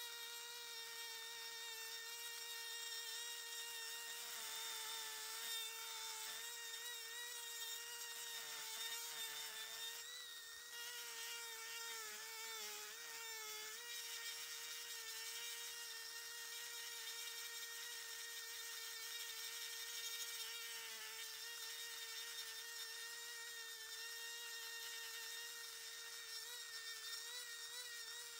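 Old Dremel 370 rotary tool running with a small burr grinding pine, a steady high whine that sags slightly in pitch now and then as the burr bites into the wood. The owner believes a bearing in the tool is going out.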